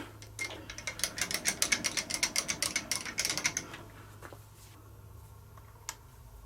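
A quick run of light mechanical clicks, several a second, for about three seconds, then a single sharp click near the end over a low steady hum.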